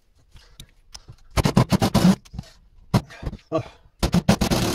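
Sped-up clatter of hand tools and metal parts as a scrap solenoid's nuts and pieces are worked off: rapid runs of clicks and clanks in two loud clusters, about a second in and again near the end.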